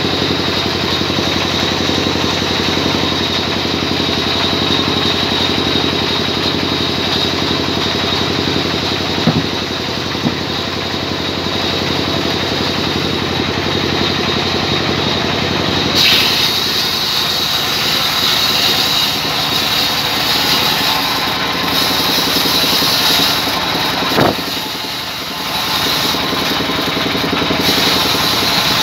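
Band sawmill running: its drive engine hums steadily. About halfway through a high hiss and whine join in as the blade saws through a log, with a few single knocks.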